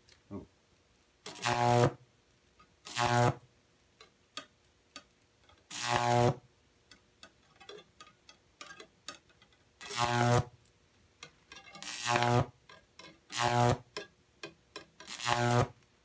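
High-voltage arc on a copper-wire Jacob's ladder fed by a microwave oven transformer at about 2,400 volts, buzzing loudly in about seven half-second bursts as the arc strikes, climbs and breaks. Small crackles and a faint transformer hum come between the bursts.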